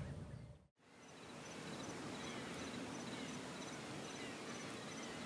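An insect, cricket-like, chirping steadily in short high chirps about three a second over a soft outdoor hiss, fading up after a brief drop to silence just under a second in.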